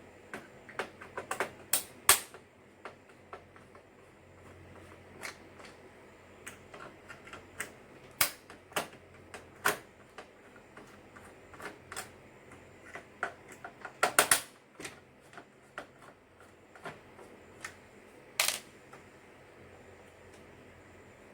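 Irregular sharp clicks and knocks of hard plastic printer parts being handled, unclipped and set down during a teardown of an inkjet printer. There are small rapid clusters, the loudest about two seconds in and again about fourteen seconds in.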